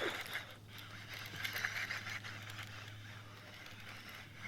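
Low steady hum of an electric trolling motor, under faint irregular splashing and scraping noise.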